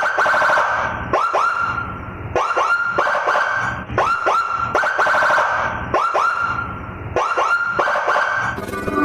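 Electronic police-escort style motorcycle siren sounding a repeating 'whoop' pattern: two quick rising sweeps that level off into a high warbling tone, about once every 1.2 seconds. Music starts near the end.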